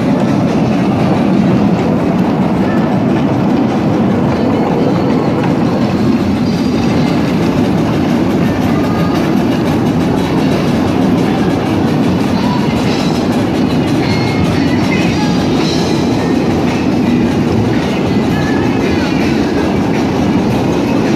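Miniature amusement-park train rolling steadily along its narrow track, heard from a riding car: a continuous rumble with wheel clatter over the rail joints.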